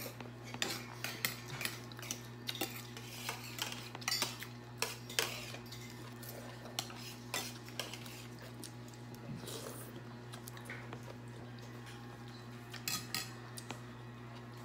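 Metal spoons clinking and scraping against glass and ceramic bowls as chicken soup with noodles is served and eaten. The taps come often in the first half and more sparsely later, with a short cluster near the end, over a steady low hum.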